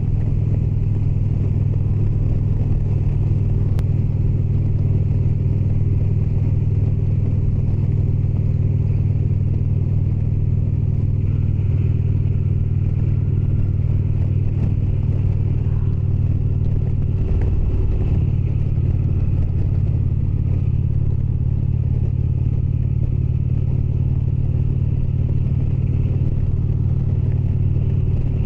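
Indian Springfield's V-twin engine running steadily under way, with a brief break and change in the engine note about seventeen seconds in.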